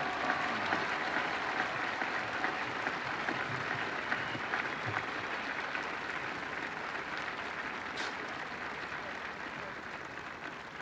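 Audience applauding the speaker, a steady clapping that slowly dies down toward the end.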